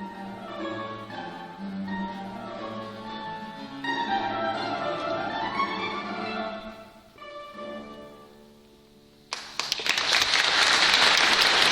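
Balalaika and guitar playing a fast Baroque piece to its close: the last chord rings and fades. About nine seconds in, loud applause breaks out and carries on.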